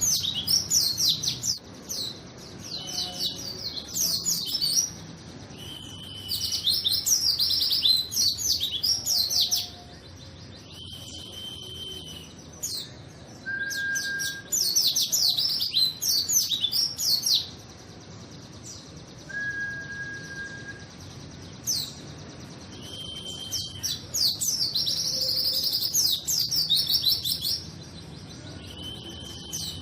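White-eye (pleci) singing in full song: bursts of rapid, high twittering notes lasting one to several seconds, with short pauses between, and a few brief whistles held at one pitch.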